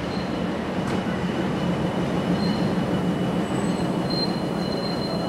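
Myanmar Railways DF-class diesel locomotive running steadily at the station platform with a dense, even rumble. A faint high squeal comes and goes in the second half.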